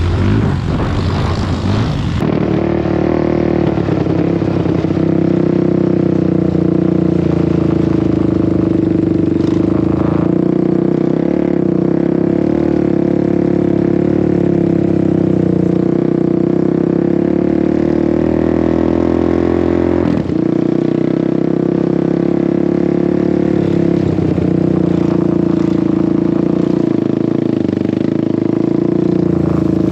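ATV engine running at a steady, even pitch while riding, with small changes in throttle now and then. About two seconds in, a rougher, noisier engine sound gives way abruptly to this steady note.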